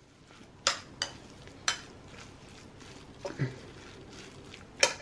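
A fork stirring raw silverfish with salt in a ceramic bowl: a soft, wet mixing noise broken by about five sharp clinks of the fork against the bowl.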